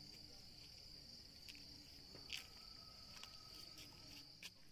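Faint, steady high-pitched chirring of crickets, with a few soft clicks.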